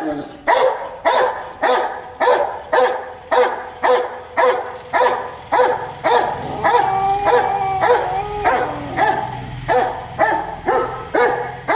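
Rottweiler barking aggressively at a cow, a steady run of loud barks about two a second. A long wavering call runs under the barks for a couple of seconds in the middle.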